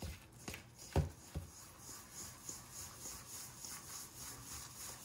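Flour dough, mixed with spices and gin, being worked and stirred in a bowl: rubbing and rhythmic scraping, with a few soft knocks in the first second and a half, the loudest about a second in.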